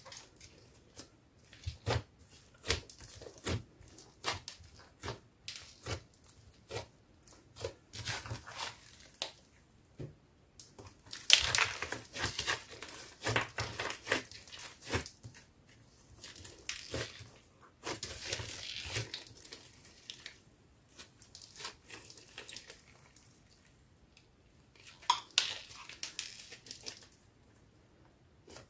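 Thick slime studded with foam beads being squeezed, pressed and folded by hand, giving many short sticky clicks and pops, with longer runs of crackling as it is worked.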